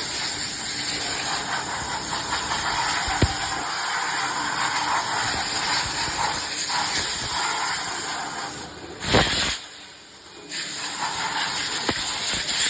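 Steady hissing noise, like a spray or an air blast, with a sharp click about three seconds in. Near nine seconds a short louder swish comes, then the hiss drops away for about a second and a half before coming back.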